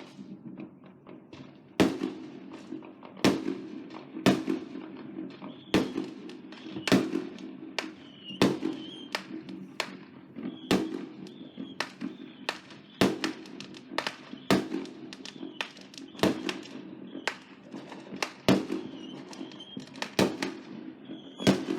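Fireworks going off in quick succession: a string of sharp bangs about once a second, some followed by a brief crackle, over a low rumble of more distant fireworks.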